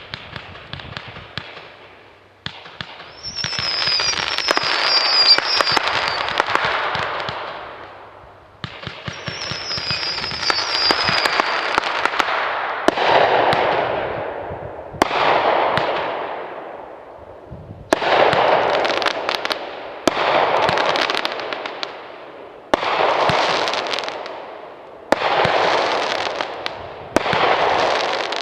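A 36-shot consumer fireworks cake firing: about nine shots go off, two to six seconds apart, and each is followed by several seconds of dense crackling from the bursting stars that fades away.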